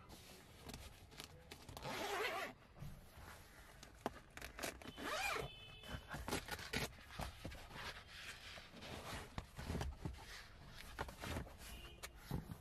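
Hand handling the leather rear seat and pulling down the fold-out rear centre armrest: rustling and scraping with a string of short clicks and knocks.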